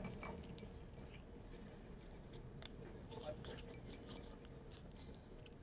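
Kitten eating dry kibble: faint, irregular crunching and small clicks and clinks as the pieces knock against a ceramic dish.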